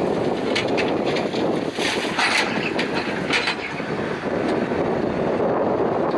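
Terex TLB890 backhoe loader's diesel engine running steadily, with wind rumbling on the microphone and brief louder hissing rushes about two and three seconds in.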